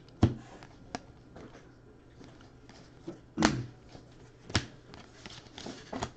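Baseball trading cards being flipped through in the hands, each card slid from the front to the back of the stack. About half a dozen sharp flicks and snaps come at uneven intervals, the loudest about three and a half seconds in.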